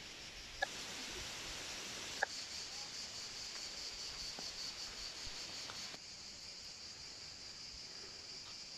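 Steady high-pitched chirring of an insect chorus, which drops a little about six seconds in. Two short faint clicks about half a second and two seconds in.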